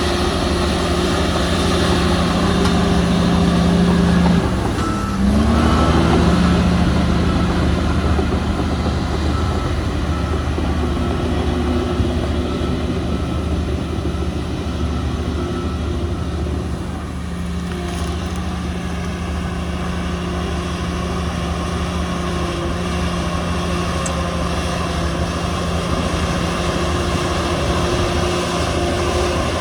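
Heavy diesel engines of earthmoving machines running steadily, with a brief change in engine pitch about five seconds in.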